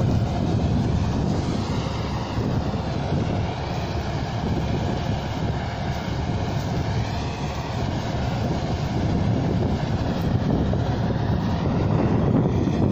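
Heavy harvest machinery, a combine harvester, running steadily in the field with a continuous low rumble.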